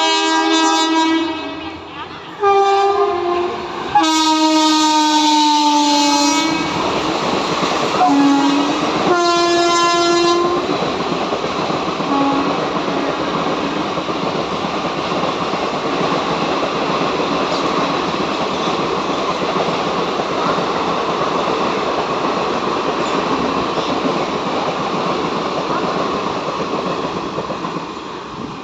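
WAP4 electric locomotive's two-tone horn sounding a series of blasts over the first ten seconds, the longest about two and a half seconds. Then the express passes at speed without stopping: a steady rush of wheel-on-rail noise with rhythmic clatter from the coaches, fading slowly near the end.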